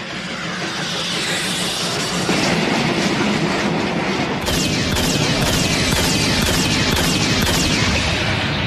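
Animated sound effect of a speeding train: a rushing rumble with rail-like clatter. It grows louder over the first two seconds and becomes fuller and heavier about four and a half seconds in.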